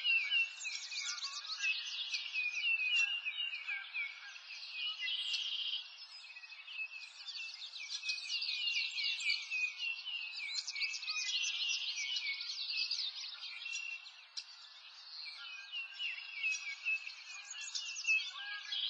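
Birds singing: many high chirps and trills overlapping in a continuous chorus, slightly thinner for a moment around the middle.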